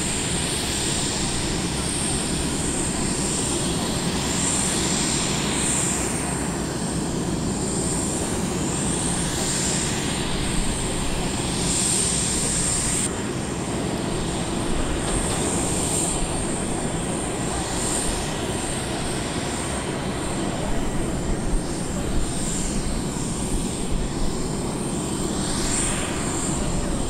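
Jet aircraft engines running: a steady rumble and hiss under a high whine, with the tone sweeping slowly up and down every few seconds.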